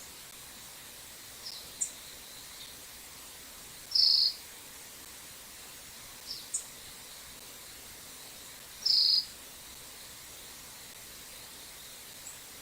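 Birds calling over a steady hiss of running stream water. Short high chips and quick down-slurred notes come twice, and two loud, harsh notes about five seconds apart are the loudest sounds.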